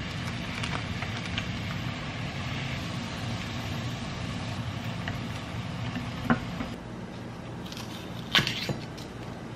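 Water at a rolling boil in a shallow pan over a gas burner, a steady bubbling hiss. Near the end, a kitchen knife cuts a stalk of Korean green onion (daepa) on a wooden cutting board, with one sharp knock and a few lighter clicks.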